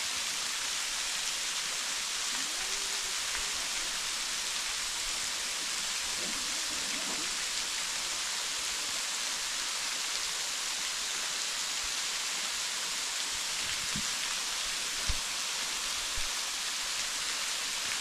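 Waterfall spilling down a rock face: a steady hiss of falling and splashing water. A couple of brief, soft low bumps come about three-quarters of the way through.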